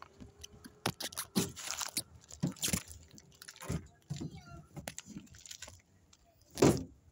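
Handling noise from a phone carried while walking: irregular scuffs and clicks, with a louder rustle near the end.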